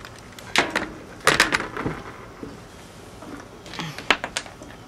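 Clicks and clacks of an airsoft sniper rifle and its loading parts being handled, in three short clusters of sharp knocks.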